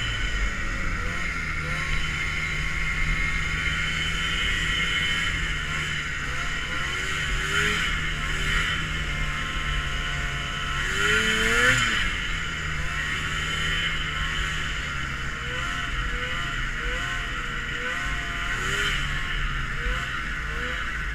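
Vintage Ski-Doo snowmobile two-stroke engines running on a ride, the throttle rising and falling; the revs climb sharply about eleven seconds in.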